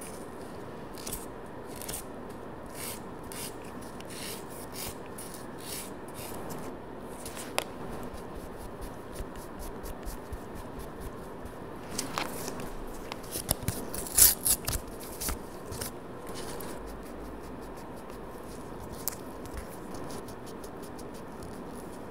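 A nail buffer block rubbed over natural fingernails in quick short strokes, a soft rasping scratch, sanding the nail surface as preparation for builder gel. About halfway through comes a cluster of louder clicks and knocks, the loudest a little past the middle.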